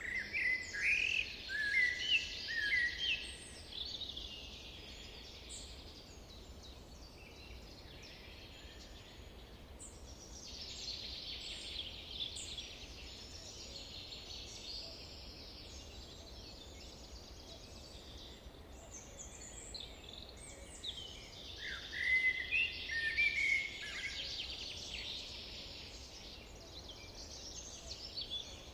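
Wild birds singing: a loud phrase of quick, sliding whistled notes at the start and another about 22 seconds in, over a fainter, steady background chorus of high chirping.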